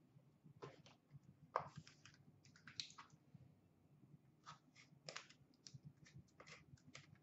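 Faint, scattered crinkling, rustling and light clicks of trading cards, their foil wrappers and an Upper Deck Artifacts hockey card box being handled by hand.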